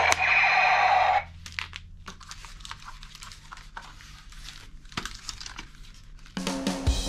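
Background music cuts off about a second in. Scattered light clicks and faint crinkling follow, the sound of something being handled, and the music starts again near the end.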